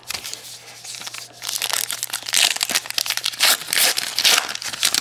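A baseball card pack's plastic-foil wrapper crinkling and crackling as it is handled and pulled open by hand. The crackle grows louder about a second and a half in.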